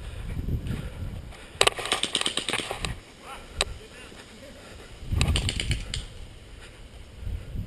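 Airsoft gun fire: a rapid burst of sharp clicks about one and a half seconds in, a single shot a little later, and another rapid burst about five seconds in, over a low rumble on the microphone.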